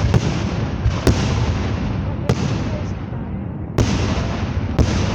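Fireworks exploding: five sharp bangs at uneven intervals, over a continuous rumble and crackle of other bursts.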